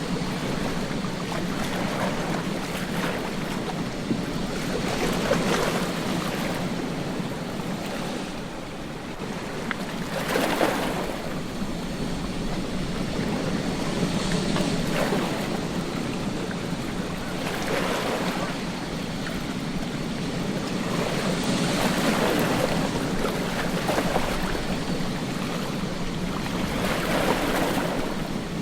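Ocean surf washing onto a beach: a continuous rush of water with a wave breaking and swelling louder every few seconds.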